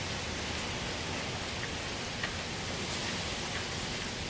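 Hurricane Irma's wind and driven rain making a steady, even hiss with no let-up.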